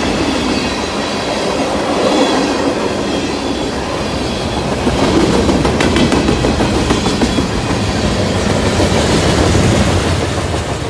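Freight cars (tank cars and covered hoppers) of a passing train rolling by close at hand: steady rumble of steel wheels on rail with scattered sharp clicks, falling away as the last car goes past near the end.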